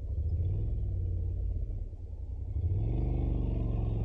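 Honda NC750X motorcycle's parallel-twin engine running on the move. It eases off about two seconds in, then pulls away with rising revs.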